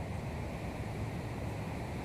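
Steady low rumble of wind buffeting the microphone, with no other distinct sound standing out.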